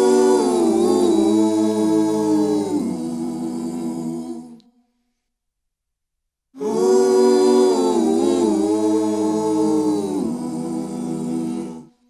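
Wordless a cappella vocal harmony: layered voices hum a slowly bending chord phrase. The same phrase is heard twice, with about two seconds of silence between, and each one cuts off abruptly.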